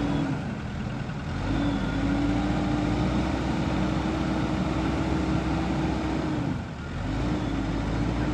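JCB 215E backhoe's diesel engine running steadily, its sound dipping briefly twice, about a second in and again near the end.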